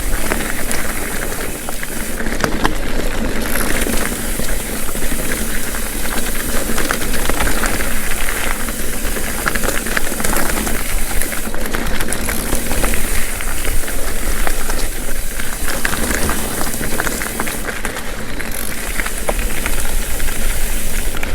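Mountain bike riding a rocky dirt singletrack: steady rushing wind noise on the microphone, with the tyres rolling over rock and the bike rattling in constant small clicks.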